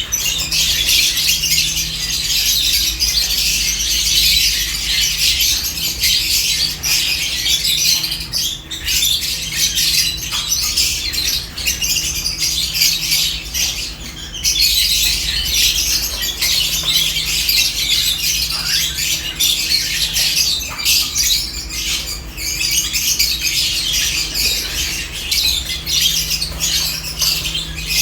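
A flock of lovebirds chattering: a dense, continuous stream of shrill chirps and squawks from many birds at once, thinning briefly about halfway through. A faint steady low hum runs underneath.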